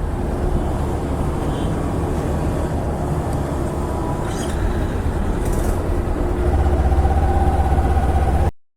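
Motorcycle engine running at low speed, with a steady rumble that gets louder about six and a half seconds in and then cuts off abruptly near the end.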